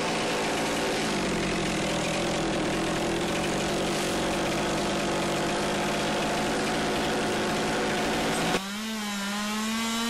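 Chainsaw running hard at high revs with a rough, steady sound; about eight and a half seconds in it changes abruptly to a clean, steady high whine.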